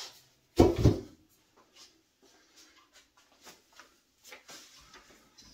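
A loud knock about half a second in, as the removed Shopsmith headstock cover is set down, then faint scattered clicks and light handling noises from working on the opened headstock.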